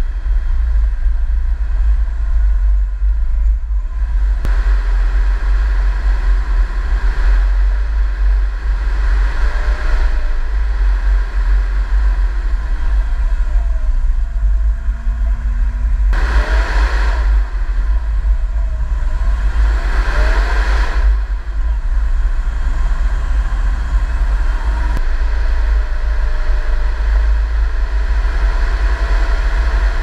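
Tracked Small Unit Support Vehicle (SUSV) running over deep snow with a steady, heavy low rumble. The engine revs up twice about two-thirds of the way in, and the sound shifts suddenly a few times.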